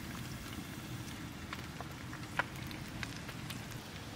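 Light rain dripping outdoors: scattered drops ticking on surfaces over a steady low rumble, with one louder drip about halfway through.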